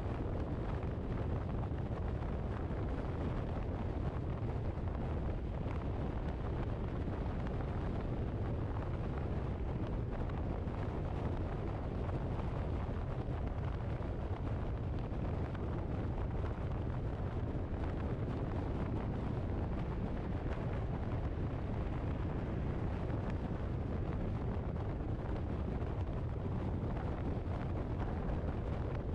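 Steady low rumble of a car on the move, with wind noise on the microphone.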